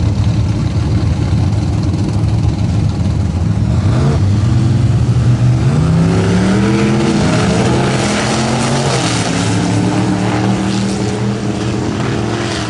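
Two drag-race cars' engines running at the starting line, then launching about four seconds in. The engine pitch climbs hard and drops back a couple of times as they shift, then steadies and fades a little as the cars pull away down the strip.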